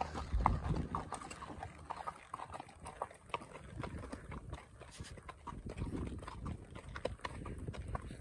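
Hooves of two horses walking on a dirt and gravel track: an irregular, overlapping clip-clop of many short hoof strikes.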